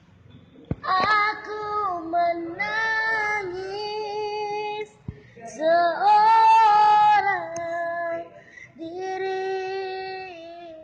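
A child singing solo, apparently unaccompanied, with long held notes that step up and down in slow, drawn-out phrases. Two short knocks are heard, one under a second in and one about halfway.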